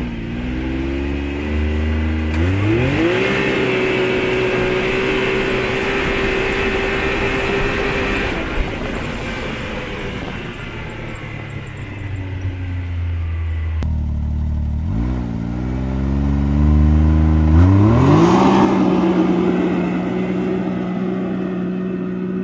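2020 Can-Am Maverick X3 Turbo base model's turbocharged three-cylinder engine revving hard on a full-throttle launch, its pitch climbing fast and then holding steady as the CVT takes up the speed. About ten seconds in the note falls away. A few seconds later it revs up again and holds steady to the end.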